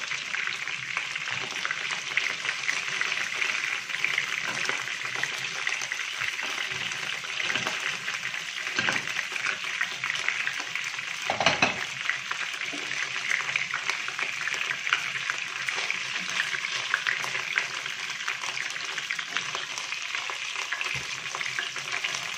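Oil and rendered chicken fat sizzling and crackling steadily in a frying pan as browned chicken pieces are lifted out, with a few louder pops, the strongest about halfway through.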